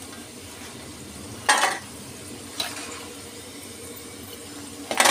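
Potato fries deep-frying in hot oil in an iron karahi on their second, high-flame fry, sizzling steadily. A steel slotted spoon scrapes and knocks against the pan as the finished fries are lifted out, loudest about one and a half seconds in and again near the end.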